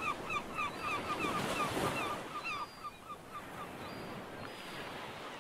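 Ocean surf washing on a beach, with a bird calling in a quick repeated series, about four calls a second, that fades out about halfway through; the surf carries on more quietly.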